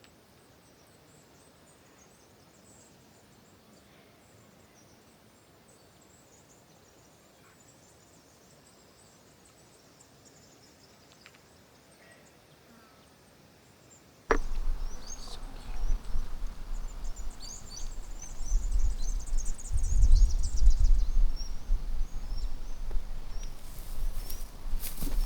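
Faint outdoor background with a thin high steady tone, cut off about 14 seconds in by loud wind buffeting the microphone, with birds chirping over it.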